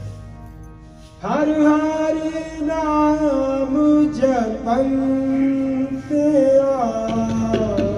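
Kirtan: a quiet harmonium drone, then about a second in a male voice enters singing long held, gliding notes of the shabad over the harmonium, with no tabla strokes.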